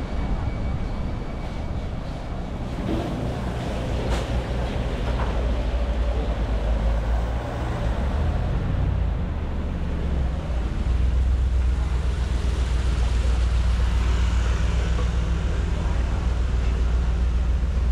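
Low, steady outdoor rumble with a general background hiss, growing louder about eleven seconds in, and a single sharp tick about four seconds in.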